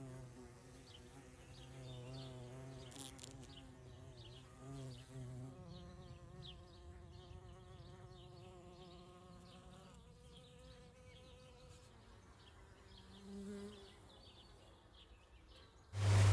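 Bumblebee buzzing in flight, a low drone that wavers in pitch, louder in the first few seconds and fading after about ten; another short buzz passes near the end.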